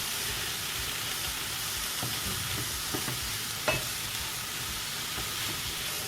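Vegetables sizzling steadily in hot oil in a frying pan, with a few light knocks, the clearest a little under four seconds in.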